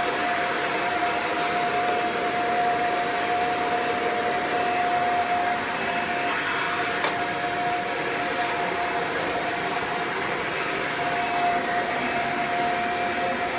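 Kirby Ultimate G Diamond Edition upright vacuum's two-speed direct-air motor running steadily on low speed in hose mode, with a steady whine over its airflow noise. A light click comes about seven seconds in.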